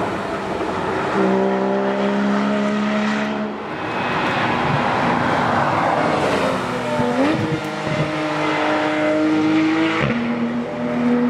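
Tarmac rally cars passing at speed one after another, led by a Porsche Cayman's flat-six. Their engine notes hold steady, then rise about seven seconds in as the next car comes through, with a step down in pitch near the end.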